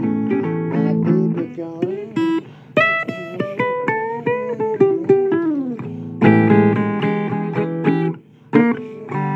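Blues guitar instrumental: plucked single notes, several bending in pitch, then strummed chords about six seconds in that break off briefly near the end before the playing resumes.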